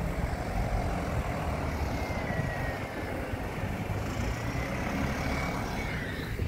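Double-decker bus driving past and pulling away, its engine running as a steady low rumble with a faint whine that rises and falls in pitch.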